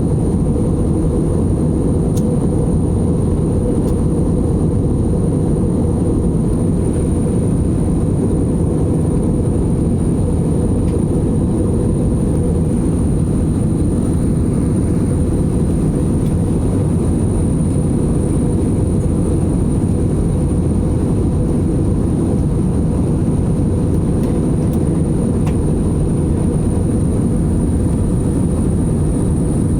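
Steady low-pitched noise inside a jet airliner's cabin in flight: engine and airflow noise, unchanging throughout.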